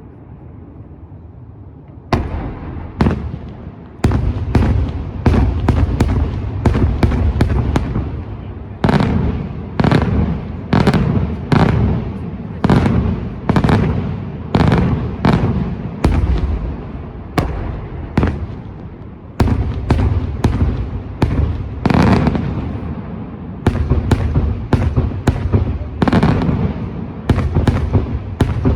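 Daylight fireworks display: after a fading rumble, a steady run of loud bangs begins about two seconds in, about one or two a second, each followed by a rolling echo.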